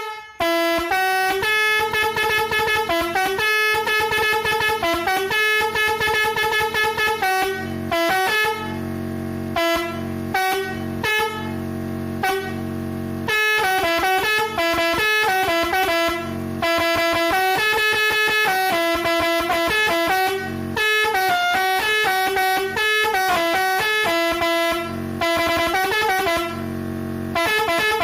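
Telolet horn, a set of multi-tone horns, playing a fast stepping melody of short notes with brief breaks between phrases. In a few stretches, longest from about eight to thirteen seconds in, a deeper steady horn tone sounds beneath the melody.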